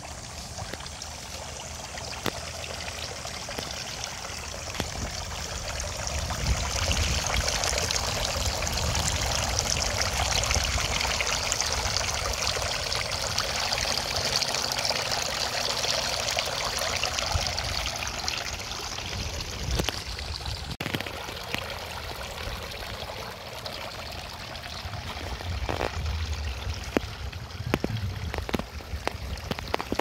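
Three-tier garden water fountain running: streams of water falling from the upper tiers and splashing and trickling into the basin, louder for several seconds in the middle.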